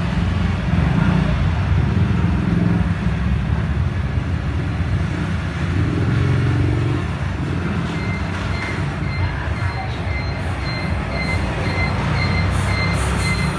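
Loud, steady low rumbling background noise with no distinct strokes, and a faint steady high tone joining about eight seconds in.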